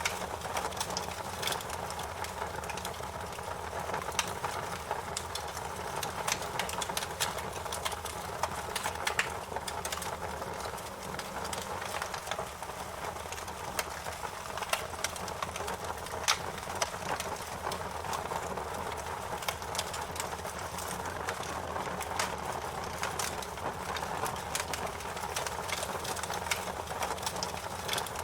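Wood fire burning in a fireplace, crackling with frequent sharp, irregular pops over a steady low rush.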